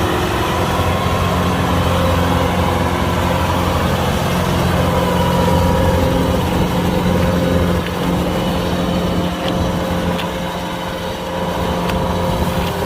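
Kubota DC-105X combine harvester's diesel engine running steadily with an even drone, easing off slightly about two-thirds of the way through, with a few faint clicks near the end.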